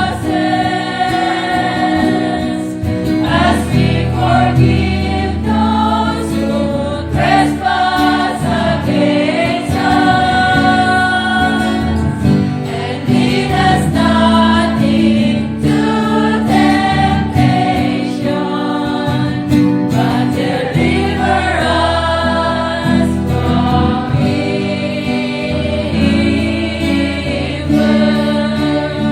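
Church choir singing a slow hymn together, with steady sustained low notes of instrumental accompaniment underneath.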